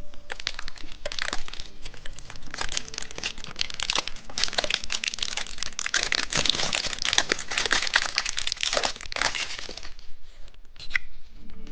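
A candy wrapper crinkling as it is handled and unwrapped, a dense crackle that goes on for about ten seconds and stops near the end.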